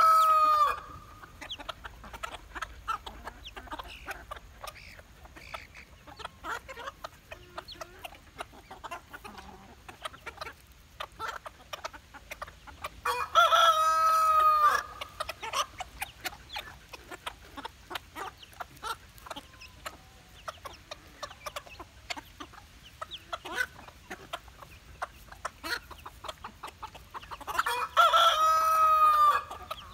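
A flock of chickens clucking softly and pecking at food, with many small clicks. A rooster crows loudly three times, about 14 seconds apart: the end of one crow at the start, one about halfway through and one near the end.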